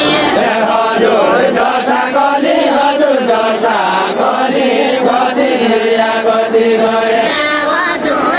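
A group of voices singing a Nepali Deuda folk song together in chant-like unison, with several long held notes.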